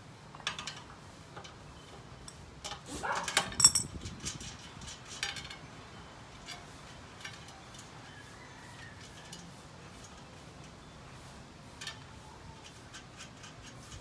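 An adjustable wrench, nuts and bolts clinking and tapping against a steel angle-iron frame as the bolts are fitted and tightened. The loudest, ringing metal clank comes about three and a half seconds in, just after a brief rising squeak, and scattered lighter clicks follow.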